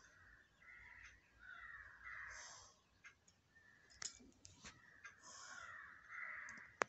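Fireworks and firecrackers heard faintly and muffled: soft hissing swells and a few sharp pops, the sharpest just before the end.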